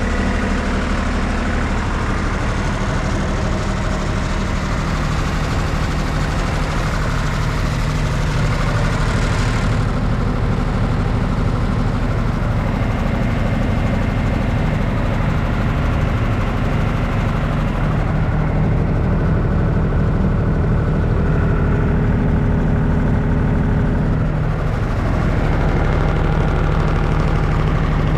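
2005 New Holland LT185B skid steer's diesel engine running steadily, its pitch shifting slightly now and then.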